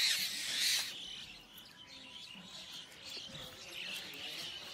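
Small birds chirping faintly and repeatedly, after a brief rustling noise in the first second.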